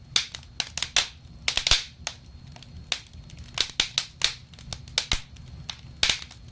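Wood fire crackling in a fireplace: irregular sharp pops and snaps, sometimes several close together, with short hissing crackles between them over a low steady rumble.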